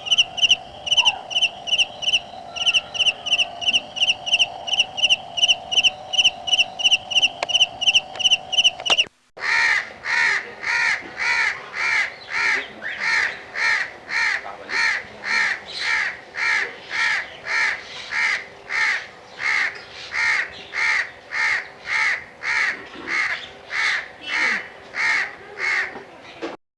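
A run of repeated bird calls. First comes a quick series of short, high calls, about four a second. After a brief break comes a long series of harsh crow caws, about two a second.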